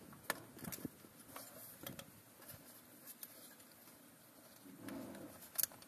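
Scattered small clicks, taps and scrapes of hands working a cast iron sealing ring over a plastic sleeve onto a tractor transmission's input shaft, with a sharper double click near the end.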